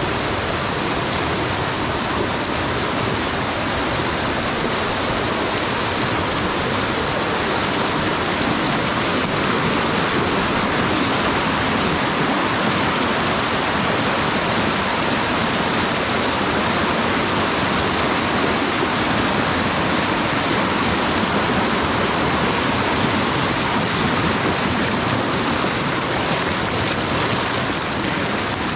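Fast-flowing creek rushing over rocks in a small rapid: a steady, even rush of whitewater.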